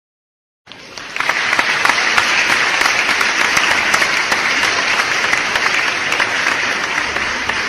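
A crowd applauding: many hands clapping together, starting suddenly a little under a second in and staying steady.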